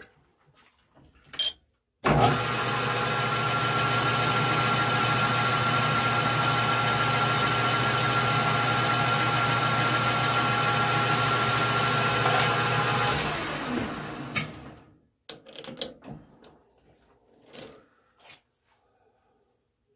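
Metal lathe running under power, spinning a thin tool-steel rod while a needle file is held to its end to take off a burr. It starts abruptly about two seconds in, runs as a steady hum with several steady tones, and winds down over a couple of seconds as the spindle coasts to a stop, followed by a few light handling clicks.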